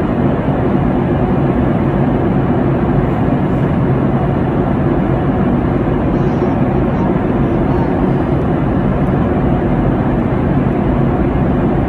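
Steady airliner cabin noise in flight: the even rush of jet engines and airflow with a low hum, cutting in suddenly at the start.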